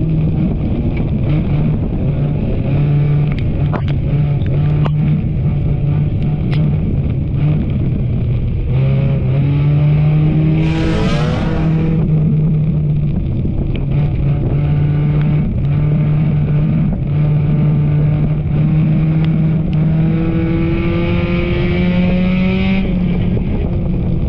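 Enduro race car's engine running hard on the track, its pitch stepping up and down with the throttle, with scattered clicks and knocks. About ten seconds in, a brief whine rises and falls.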